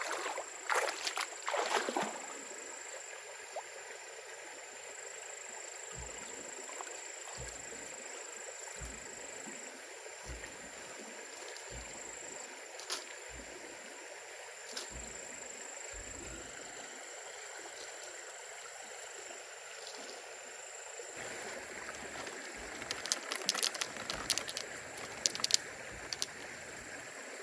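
A stream running steadily, with clusters of sharp clicks near the start and again near the end. Soft low thumps come about once a second in the middle.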